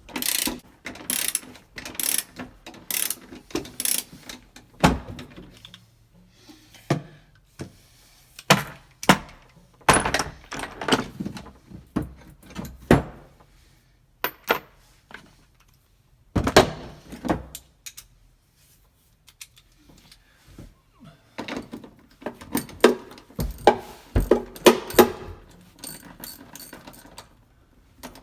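Hand ratchet wrench clicking in short runs as bolts holding a metal plate are backed out, with pauses between runs.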